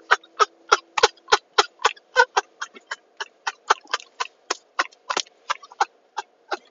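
A man laughing in a long run of quick short pulses, about four or five a second.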